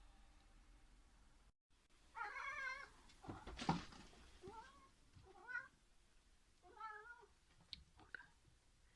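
A domestic cat meowing four times in short, wavering calls. A sharp knock comes between the first and second meows and is the loudest sound, and a couple of light clicks follow near the end.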